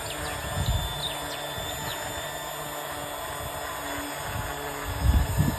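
Electric power sander running steadily on a wooden bar chair, smoothing the surface ready for staining. A couple of low thumps come about five seconds in.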